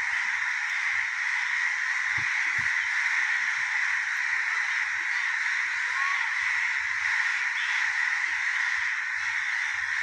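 A dense, steady chorus of many crows cawing together.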